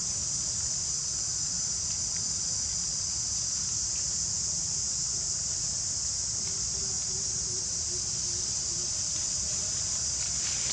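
Steady, high-pitched insect chorus, an unbroken drone with a low rumble underneath.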